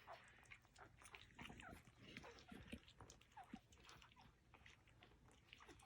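Faint, short squeaks from newborn Cavalier King Charles Spaniel puppies, a few scattered high little glides, amid soft wet licking and small clicks.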